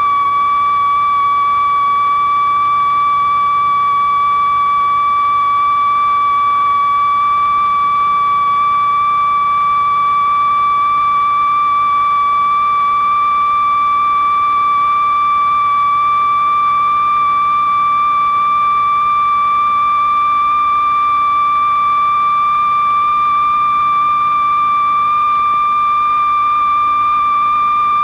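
Loud, steady electronic sine-wave tone with faint overtones, creeping very slowly upward in pitch. It is a stretch of one long glissando that climbs over tens of minutes, the film's continuous rising sine wave, heard against a faint hiss.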